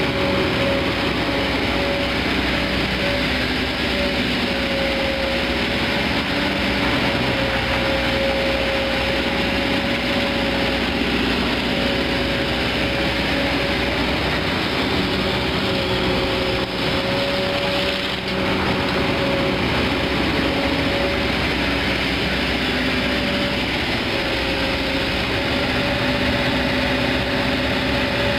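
Kobelco SK200 Geospec hydraulic excavator's diesel engine running steadily under load, with a high whine held over it, as the machine works its boom and bucket.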